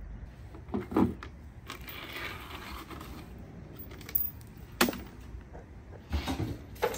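Sharp metal clicks and knocks from hand tools working a snap ring off a T56 transmission gear, with snap ring pliers and a screwdriver. A few single knocks come about a second apart, with a scraping stretch between them and a cluster of knocks near the end.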